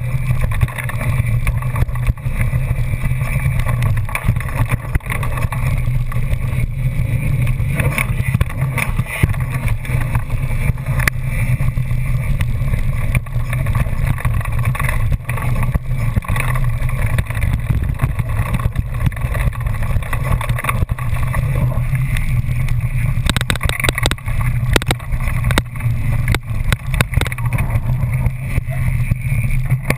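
Mountain bike rolling over a dirt and gravel trail, heard through a camera mounted on the bike: a steady rumble from the knobby tyres with frequent rattles and knocks from the bike over bumps. The rattles come thickest about three-quarters of the way through.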